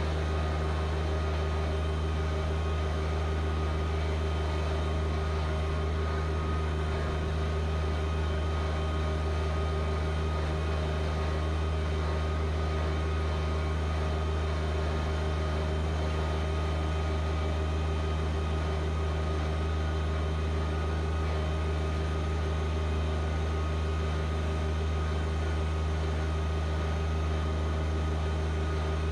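John Deere 1025R compact tractor's three-cylinder diesel engine running at a steady speed, an even hum that does not change.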